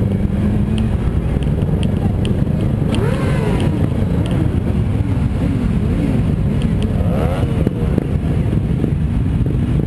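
Motorcycle engines of a group ride at low speed, heard from a camera on one of the bikes: a steady engine rumble, with engines revving up and back down about three seconds in and again about seven seconds in.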